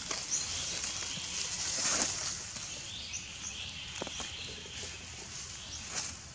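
Outdoor natural ambience: a steady high-pitched hiss or buzz, a few short high chirps around the middle, and occasional soft ticks like dry leaves being stirred.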